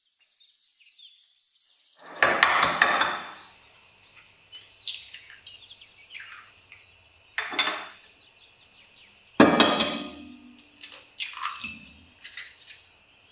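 Kitchen dishes and utensils clinking and knocking in several separate bursts, starting about two seconds in, some strikes leaving a short ring.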